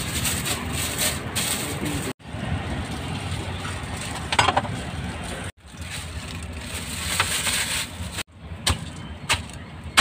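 Outdoor street noise in short clips joined by abrupt cuts, with a few sharp knocks in the last couple of seconds.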